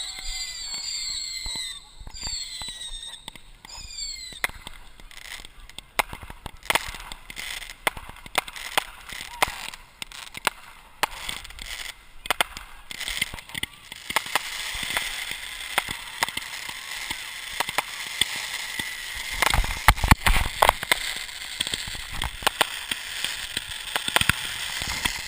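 Aerial fireworks going off close by: high whistles falling in pitch at the start, then a dense run of sharp cracks and crackling, with the loudest bangs about 20 seconds in.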